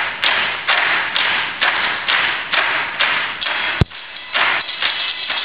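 Tabletop percussion played by a seated ensemble: a steady pattern of short hissing strokes about two a second, with a single deep thump about four seconds in.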